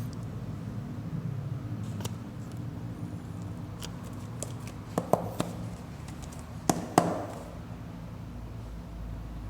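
A steady low hum with a few sharp clicks and knocks: two about five seconds in, and two louder ones about seven seconds in.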